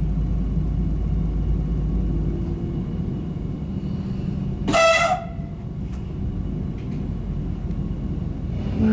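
The running noise of a GTW 2/6 diesel railcar heard from inside the passenger cabin, a steady low rumble. About halfway through, the train's horn gives one short toot.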